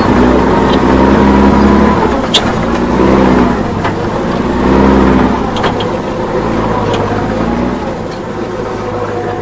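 Dubbed-in heavy truck engine sound, revving up and easing off in several surges as it tows a pickup out of the mud, over a low steady rumble; it settles lower near the end.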